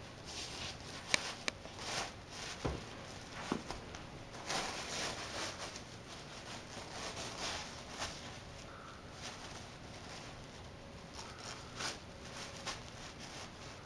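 An Australian Shepherd dog tearing and nosing at tissue-paper gift wrapping, the paper rustling and crinkling in irregular bursts. There are a few sharp clicks in the first few seconds.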